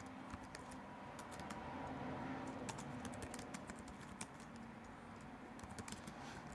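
Typing on a computer keyboard: short runs of quiet key clicks with gaps between them, over a faint steady hum.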